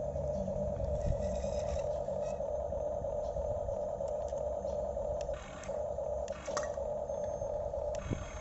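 Huina 1550 RC excavator's electric motors running with a steady whine that cuts out briefly a few times as the controls are released. Scattered clicks and scrapes come from the working machine.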